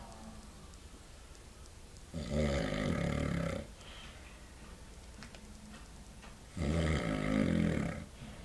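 A man snoring really loud: two long snores about four and a half seconds apart, each lasting about a second and a half.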